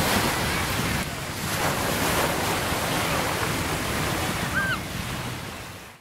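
Surf washing in, with wind buffeting the microphone; the sound swells and eases, then fades out near the end.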